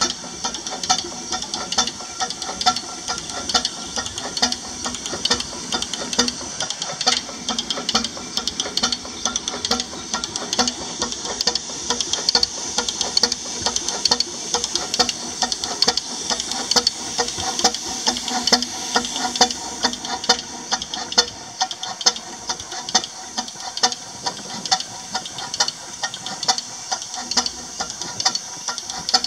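Miniature scale traction engine running, its exhaust giving quick, even chuffs several times a second over a steady hiss.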